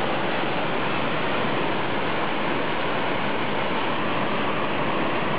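Waterfall plunging down a narrow rock gorge: a steady rush of falling water, unbroken and even in level.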